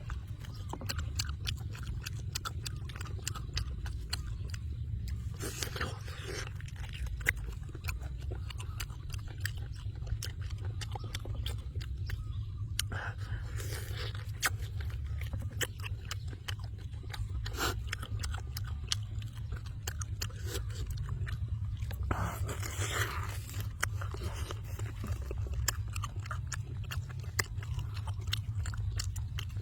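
A person chewing and biting into boiled chicken: repeated wet smacks and crunches over a steady low rumble.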